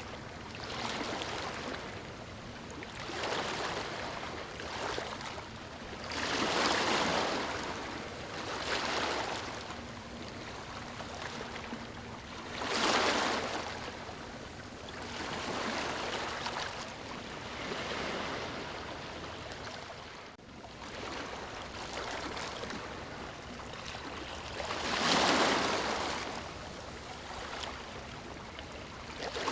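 Calm, small waves breaking and washing up on a sandy beach, the hiss swelling and falling every few seconds. Bigger waves come in about a quarter of the way through, near the middle and near the end.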